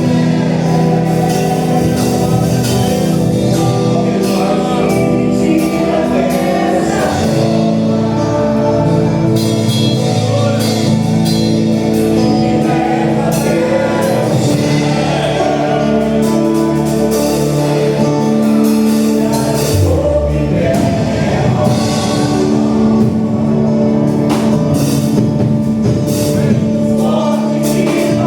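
Live gospel worship music: sung vocals over a band with steady drum beats.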